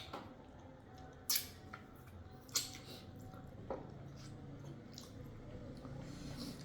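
Eating sounds: a few short wet smacks and clicks of chewing and of handling food, the two loudest about one and two and a half seconds in, over a faint low hum.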